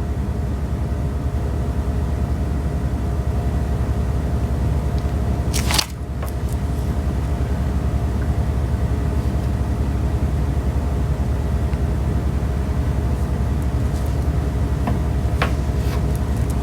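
Steady low mechanical hum with a few faint steady tones above it, broken by one short sharp noise about six seconds in and a few faint clicks near the end.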